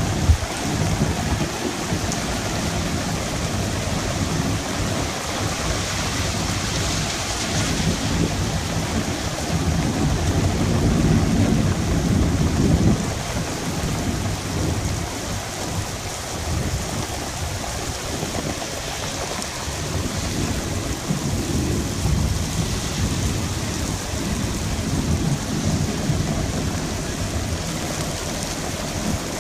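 Heavy rain pouring during a thunderstorm, a steady dense hiss with low rumbling underneath that swells about ten to thirteen seconds in.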